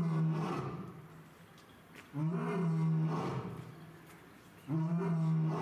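Male lion roaring: a series of long calls, each with a steady low tone, repeating about every two and a half seconds.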